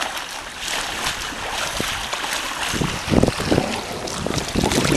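Wind buffeting the microphone over small waves lapping at a stony lakeshore, with a kayak paddle dipping into the water as the boat comes in. Stronger low gusts hit the microphone about three seconds in and again near the end.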